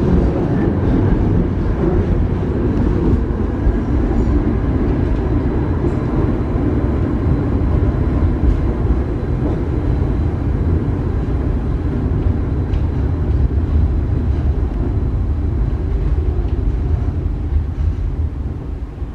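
Interior running noise of a Stadler Variobahn tram on the move: a steady rumble from the wheels on the rails and the running gear. It grows quieter near the end.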